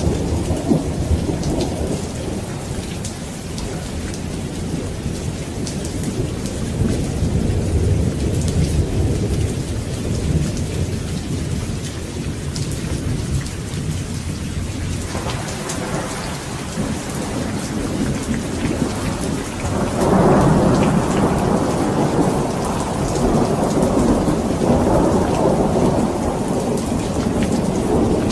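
Steady rain with rolling thunder rumbling underneath, swelling louder about two-thirds of the way through.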